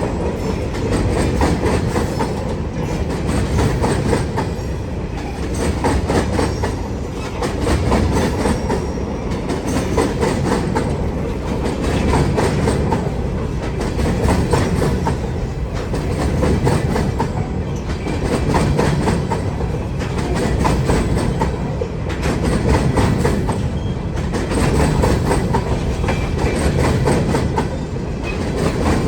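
Freight cars of a Wheeling & Lake Erie train rolling past, their wheels clicking over the rail joints in a steady, repeating clickety-clack over a continuous rumble.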